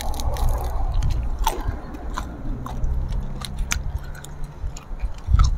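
Close-miked crunchy chewing and biting of raw vegetables, with crisp crunches about once a second. A low steady rumble runs underneath.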